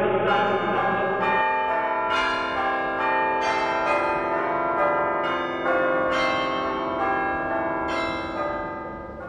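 Church bells ringing a peal, about two or three strikes a second with long overlapping rings. The peal fades away near the end.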